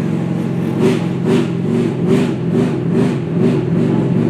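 Monster truck engine running as the truck drives along, with a flag right at the microphone flapping in the wind about twice a second.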